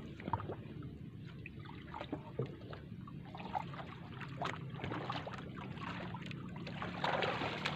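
Water trickling and lapping softly against an outrigger canoe's hull, with scattered small drips and splashes. There is a slightly louder splashing stretch near the end.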